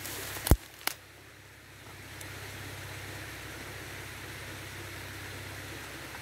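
Steady rush of stream water flowing over a small concrete weir, with two sharp knocks in the first second.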